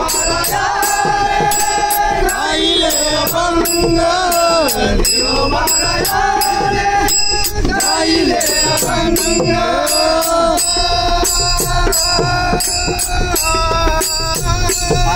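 A man singing a Marathi devotional abhang to Panduranga, held and bending sung notes, accompanied by small hand cymbals (taal) struck in a steady beat of about three strikes a second.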